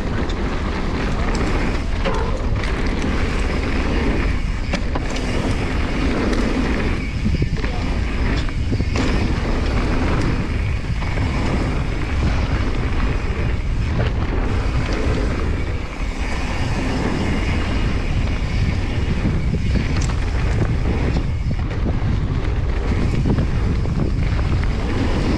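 Specialized Stumpjumper Evo mountain bike running fast down a dirt trail: steady wind rumble on the action camera's microphone with tyre noise and the bike rattling and knocking over bumps.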